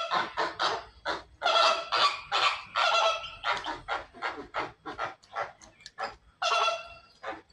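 A flock of flamingos calling: a rapid run of short, overlapping honking calls, two or three a second, thinning out toward the end.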